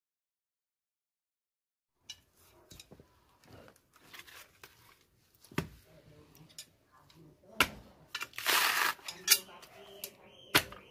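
Silence for about two seconds, then dry coconut husk fibres rustling and tearing under hands, with a few sharp knocks and a louder rustle partway through.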